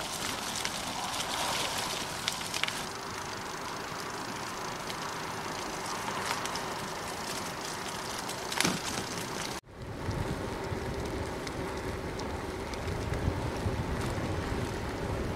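Bicycle tyres rolling over a leaf-strewn forest track, with scattered crunches and clicks of grit. After an abrupt cut about two-thirds through, the bike rolls on smooth asphalt and wind rumbles low on the microphone.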